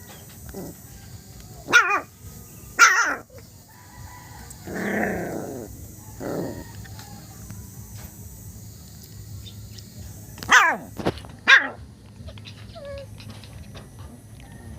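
Small dog barking in short, high yaps: two about two seconds in and two more near eleven seconds, with a longer, lower call in between.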